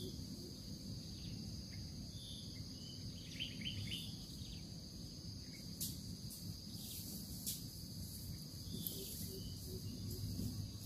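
Insects drone steadily over a low outdoor rumble. A small bird chirps a few times about three to four seconds in, and faint low coos of a spotted dove come near the end.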